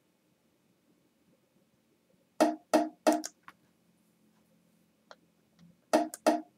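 A bongo track playing back: two groups of three quick hand strokes, about three and a half seconds apart, with near silence between. The track is heard through a very narrow parametric EQ cut of about 2 dB near 300 Hz, set to pull out a troublesome ring in the drums.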